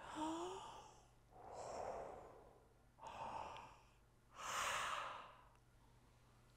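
A man blowing out warm breath through an open mouth four times, each a soft breathy exhale of about a second, the last the loudest: breath meant to warm and melt ice.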